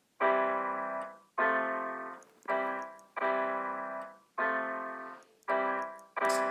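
Keyboard with a piano-like tone playing a slow run of chords, about seven in all, each struck and left to fade before the next. Near the end a quick, high, rhythmic percussive sound joins in.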